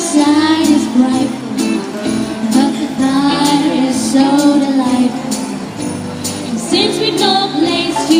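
A song with singing over instrumental accompaniment and jingling percussion.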